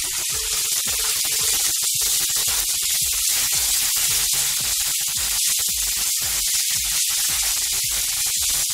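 Chopped onion, garlic and green chillies sizzling steadily in hot oil in a nonstick pan as a spatula stirs them.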